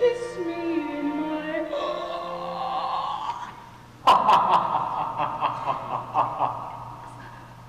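Stage singing with musical accompaniment: a held sung phrase that slides down in pitch, then, about four seconds in, a run of quick staccato sung laughs that fade away near the end.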